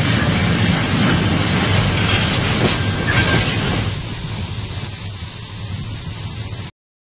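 Brake noise, a loud rough rushing noise with no clear squeal tone, that drops off about four seconds in and stops abruptly near the end.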